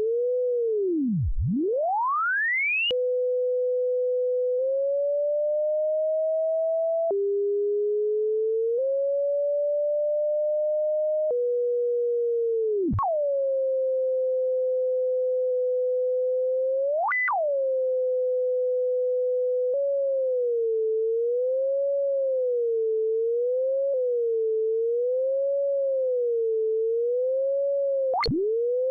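A single computer-generated pure sine tone whose pitch traces the graphs of math functions, changing shape every few seconds. It starts with a deep dip and a steep rise to a high squeal, then holds steady, glides up slowly, and jumps in steps. Next come sudden spikes, where the pitch shoots far up or plunges, like a graph running off to infinity. Then it wavers smoothly up and down about once every two seconds. Near the end, quick sharp spikes return.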